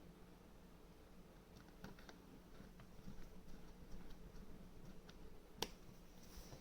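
Faint, scattered clicks and ticks of a small T5 screwdriver driving the housing screws back into a laptop base, with one sharper click near the end.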